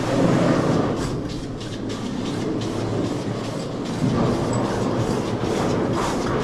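Continuous rattling and clattering from a rope-and-pulley hoist lowering a load of ore bags down the mine raise.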